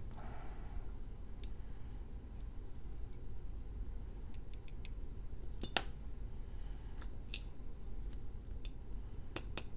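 Scattered light metallic clicks and ticks of small lock parts and tools being handled as a pin-tumbler lock cylinder is taken apart, with two sharper clicks about six and seven seconds in, over a steady low hum.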